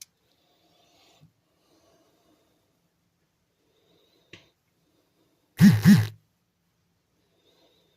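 Two quick, loud breathy huffs from a person, a little over a second after a small click.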